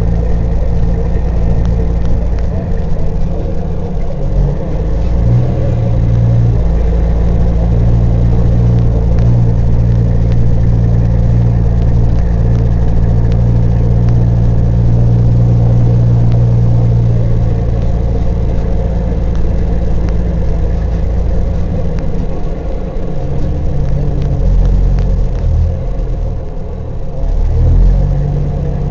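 Diesel engine of a Peterbilt 379 truck, heard from inside the cab while it drives on a dirt haul road: a steady low running note that drops and shifts several times near the end as the revs change.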